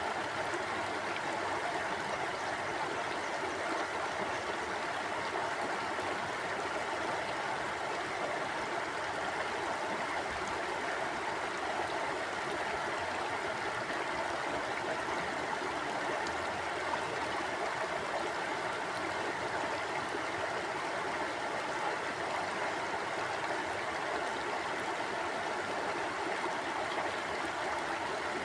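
River water flowing steadily, an even rushing and babbling that neither rises nor falls.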